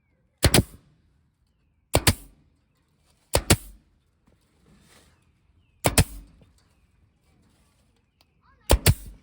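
Staple gun firing: five sharp double clacks spaced one to two and a half seconds apart.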